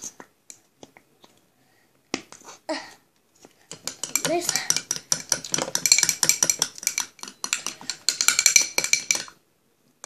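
A metal spoon stirring slime glue and borax water in a glass bowl, clinking rapidly against the glass from about four seconds in until shortly before the end. A few light taps come before it.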